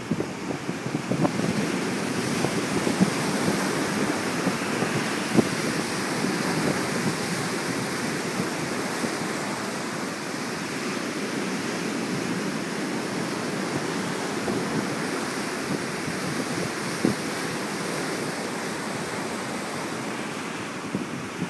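Ocean surf breaking against and washing over the rocks of a stone jetty, a continuous rushing wash, with wind buffeting the microphone and a few brief pops.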